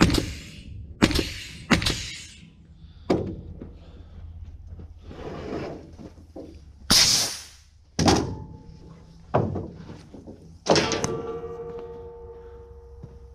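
Steel parts clanking and knocking as they are set and fitted on a trailer: a run of sharp metal knocks about a second apart. A brief hissing scrape comes about halfway through. One knock near the end leaves the steel ringing on with a clear tone that fades slowly.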